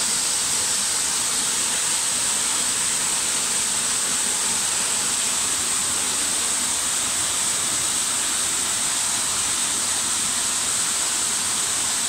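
Water of a small rocky cascade pouring over stone ledges: a steady, even rush with a strong high hiss and no breaks.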